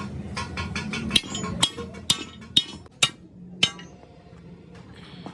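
A hammer striking steel in about six ringing blows, roughly half a second apart, that stop about two-thirds of the way through.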